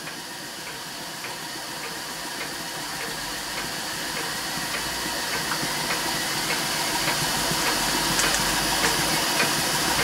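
Scratch-built horizontal Hero engine (aeolipile) running under steam: a steady hiss that grows louder, with a light tick about twice a second.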